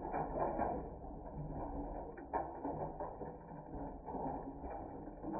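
Water with a dense, continuous crackle of small clicks and splashes.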